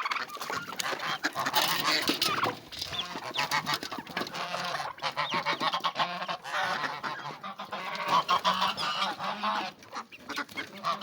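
Domestic geese honking in a dense, overlapping chorus with chickens and other farmyard poultry, the flock calling as feed is put out.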